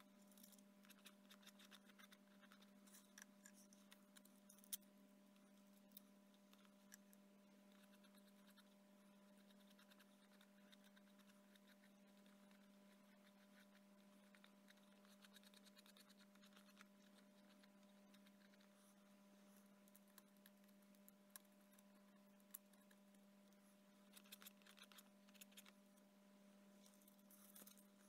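Near silence: a faint steady hum, with faint scattered scratches and taps as a glue brush and paper pieces are handled on the model.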